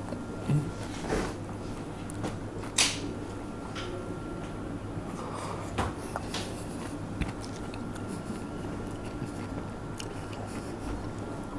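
A person eating a chocolate-and-cream dessert from a large glass goblet: a few short knocks, gulps and chewing sounds, the loudest about three seconds in, over a steady low hum.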